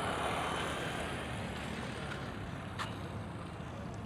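Highway road traffic: the steady noise of passing vehicles, loudest at the start and slowly fading.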